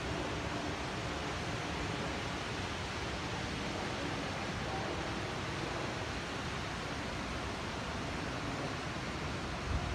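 Steady roar of the American Falls at Niagara, a huge volume of water pouring over the brink and crashing onto the rocks below. A brief low bump comes near the end.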